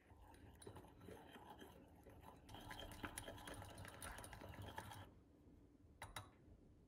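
Mini wire whisk beating an oil marinade in a small ceramic ramekin: faint, rapid scraping and clicking of the wires against the bowl that stops about five seconds in, followed by a couple of sharp taps near the end.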